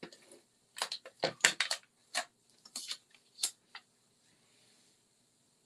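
A quick run of sharp clicks and taps from craft supplies being handled on the work mat: plastic and paper pieces set down and pressed into place. It is busiest in the first two seconds, loudest about a second and a half in, and trails off into faint hiss after about four seconds.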